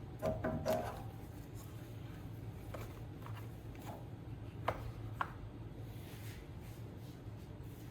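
Hand tools and metal engine parts handled during a scooter-engine teardown: a few light metallic clinks with brief ringing near the start, then two sharp clicks about half a second apart in the middle, over a steady low hum.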